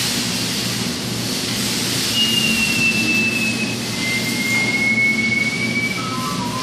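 Claw machine game sounds over a steady hum and hiss: one long electronic tone gliding slowly down while the claw drops onto a plush, then a second gliding slowly up as it lifts it, and near the end a descending run of short electronic notes begins.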